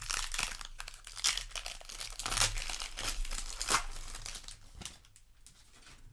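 Foil booster pack wrapper crinkling and crackling as it is handled and opened, busy for about five seconds and then dying away.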